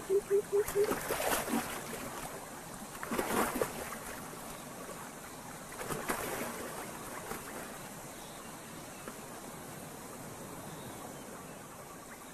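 Water splashing as a clawless otter swims through shallow water: three splashes, about one, three and six seconds in, over a faint wash of moving water that fades away. A held low tone ends about a second in.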